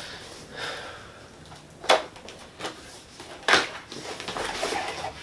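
Handling of a cardboard box and its packaging during an unboxing: soft rustling with two sharp knocks, about two and three and a half seconds in.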